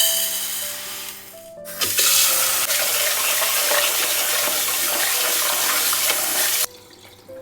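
Tap water running into a sink for about five seconds, starting about two seconds in and cutting off abruptly, over light background music.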